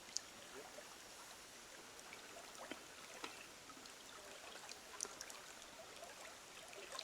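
Faint running water trickling steadily, with a few small sharp ticks and drips scattered through it, one just after the start and another about five seconds in.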